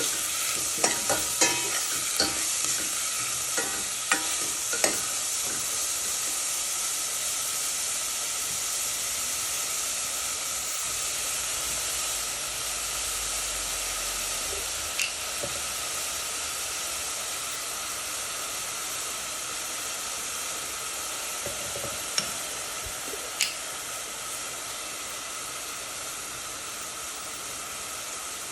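Food frying in hot oil in a pan, a steady sizzle, with a utensil clicking against the pan several times in the first few seconds and a few more times later as it is stirred.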